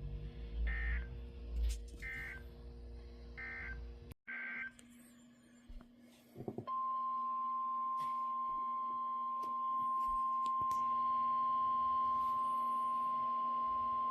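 NOAA Weather Radio alert signal over a weather radio: four short squawks of digital alert-header data in the first few seconds, then about six and a half seconds in the steady 1050 Hz warning alarm tone comes on and holds, announcing a new warning (here a severe thunderstorm warning). A low steady hum runs underneath.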